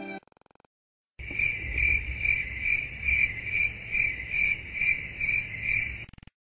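Crickets chirping, the stock 'awkward silence' meme sound effect: an even high chirp pulsing about twice a second, starting about a second in and stopping shortly before the end.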